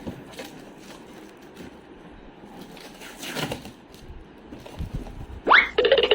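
Soft rustles and a few light clicks of a product box being handled and opened. About five and a half seconds in, a loud rising whoosh leads into a buzzing electronic music sting, the loudest sound.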